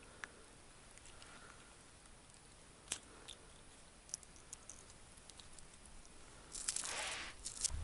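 Faint handling sounds of bare hands unhooking a small perch from an ice jig: scattered light clicks and ticks, then a louder rustle lasting about a second near the end.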